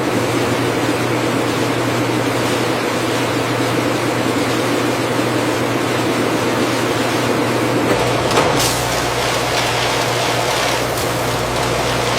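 High-powered cooling fans and conveyor machinery on a potato-chip line, running with a steady whir and a constant low hum. A deeper rumble joins about eight seconds in.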